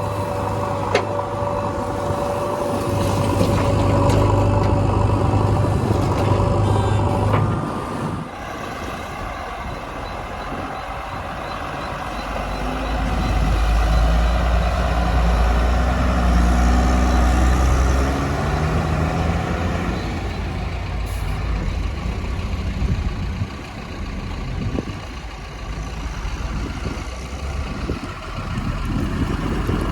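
Heavy diesel engines of a backhoe loader and dump trucks running. A steady engine hum changes about a quarter of the way through, and a deep low rumble swells for several seconds around the middle.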